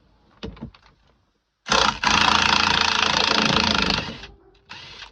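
Handheld power tool run in one long burst of about two and a half seconds and a short second burst near the end, backing off the 21 mm steering wheel center nut. A few light clicks come first, as the socket goes onto the nut.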